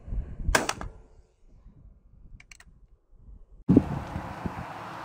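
.22 revolver firing a single shot about half a second in, a sharp crack with a short ring, over wind buffeting the microphone. Two faint clicks follow, and wind noise comes back strongly near the end.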